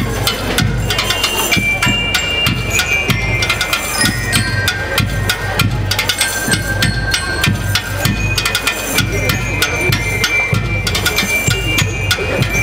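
School rhythm band playing: snare and bass drums keep up a fast, steady beat while metal bell lyres ring out a melody over it.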